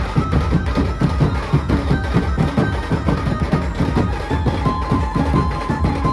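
Dhumal procession band playing loud: large bass drums beaten in a fast, steady rhythm under a melody of held notes.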